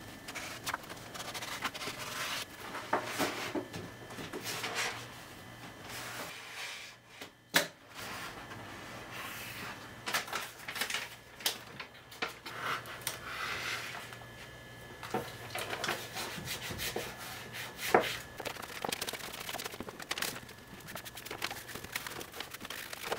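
Self-adhesive vinyl film sheet being handled, creased and smoothed by hand: irregular rustling, crinkling and rubbing of the plastic film with scattered small clicks and taps, and one sharp knock about seven and a half seconds in.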